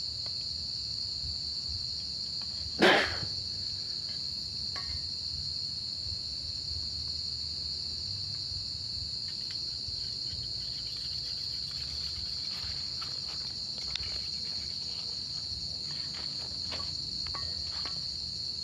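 Night insect chorus, crickets trilling steadily on a high pitch. About three seconds in comes one loud, sudden knock or bang, and faint scattered clicks and rustles follow later on.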